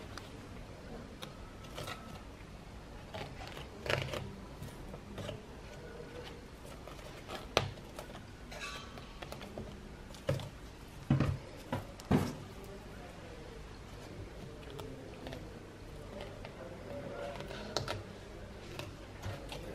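Hands handling thread on a foam packaging insert: light scattered taps and rustles, with a few sharper knocks a little past the middle.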